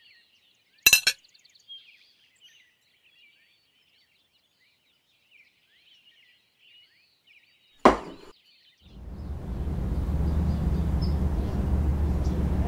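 A sharp clink about a second in, faint birds chirping, and a second louder clink with a short ring near eight seconds. Then a steady low rumble of outdoor street ambience starts and runs on.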